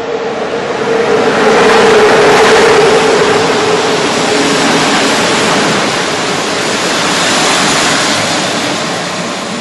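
Electric locomotive and its passenger coaches passing close by along a station platform without stopping: a loud rolling rush of wheels on rail that swells about a second in and eases toward the end as the coaches go by, with a steady tone that fades about halfway through.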